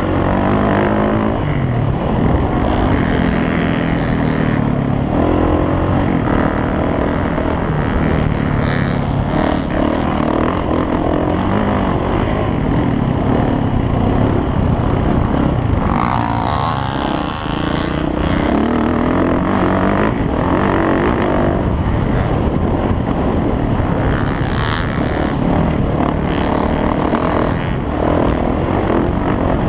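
Motocross dirt bike engine revving hard and dropping back as it is ridden, its pitch rising and falling with the throttle and gear changes, with a brief let-off a little past halfway.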